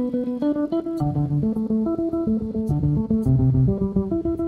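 Instrumental rock passage of a live song: an electric guitar picks a steady pattern of single notes over a bass guitar, with no singing. It is a concert recording with the crowd noise filtered out.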